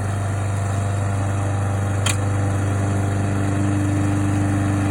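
Push lawn mower's small gasoline engine running steadily at a constant speed while being pushed, with one short sharp tick about two seconds in.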